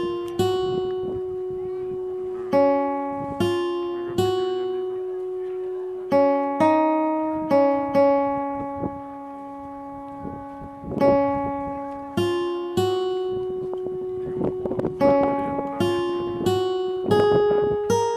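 Background music: a slow melody of plucked guitar notes, each ringing out and fading.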